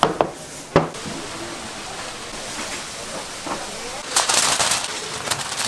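Doughnuts frying in hot oil, a steady sizzle, with a couple of sharp knocks in the first second and a louder burst of sizzling about four seconds in.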